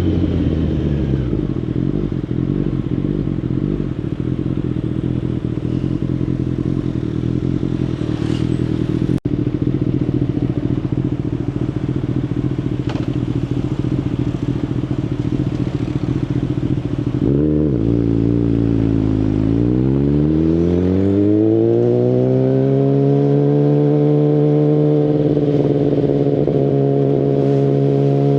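A 2019 Kawasaki Ninja ZX-10RR's inline-four, breathing through a full Akrapovic Evolution Line exhaust, drops in pitch as the bike slows, then runs low and steady. About 17 seconds in it gives a quick rise and fall, then climbs in pitch as it accelerates and holds a higher steady note.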